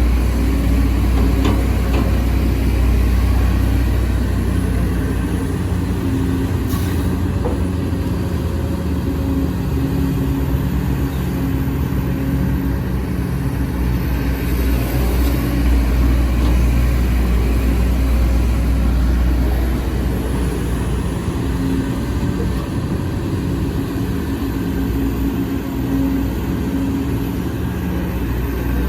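Sumitomo SH210F hydraulic excavator's diesel engine running steadily while working, its pitch shifting up and down a little every few seconds.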